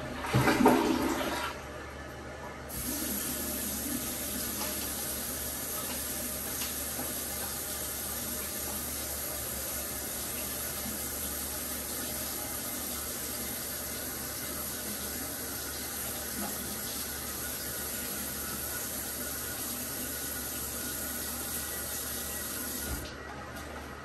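Toilet flushing, a loud rush of water in the first second or so, then the tank refilling with a steady hiss that stops abruptly near the end.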